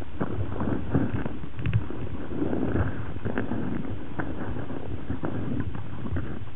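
Muffled water churning and splashing from a Pembroke Welsh Corgi dog-paddling, heard from a camera held underwater, with irregular light clicks and knocks throughout.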